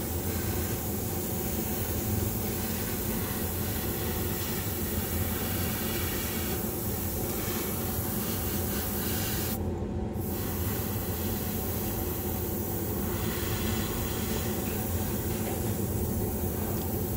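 Airbrush spraying in a steady hiss over a steady low machine hum; the hiss cuts out for under a second about ten seconds in, then resumes.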